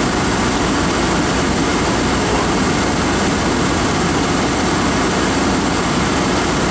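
Steady engine and road noise of a car driving in traffic, heard from inside the cabin, even and unchanging throughout.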